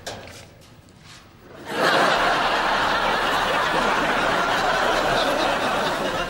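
Studio audience laughing, breaking out suddenly about two seconds in and holding steady, after a quiet start with a few small clicks.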